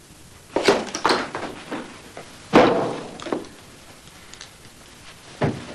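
A door slamming shut about two and a half seconds in, the loudest sound here, with shorter knocks and thuds before it and a single thud near the end.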